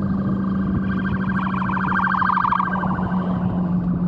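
A siren warbling rapidly for about two seconds, swelling and then fading, heard over the steady drone of the car's engine and the wind and road noise of an open-top convertible at highway speed.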